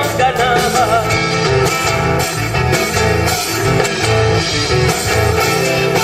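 Argentine folk music played live: a chacarera with guitars over a steady low beat, and a wavering melody line in the first second.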